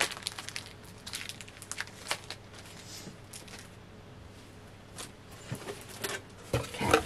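Plastic packaging crinkling and crackling as it is handled, in quick small crackles, thinning out after a couple of seconds, with a louder bump and rustle near the end.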